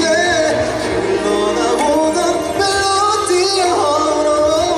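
Male pop singer singing a ballad live through a stage microphone over musical accompaniment, with long held notes that waver and glide.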